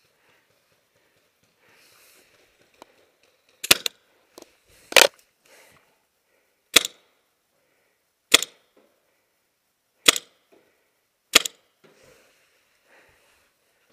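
Tippmann TiPX paintball pistol firing six loud, sharp shots one to two seconds apart, with a couple of fainter pops between them.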